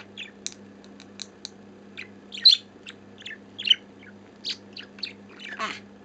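Budgerigar chattering: an irregular run of short, sharp high-pitched chirps and clicks, loudest about two and a half seconds in.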